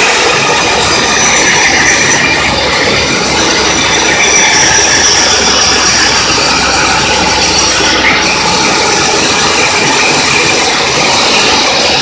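Mobile band sawmill cutting lengthwise through an acacia log to make boards: loud, steady running of the blade and machinery with a high whine in it.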